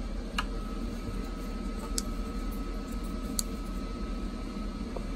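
Three faint clicks of plastic Jetboil stove parts being handled, over a steady room hum with a faint high tone.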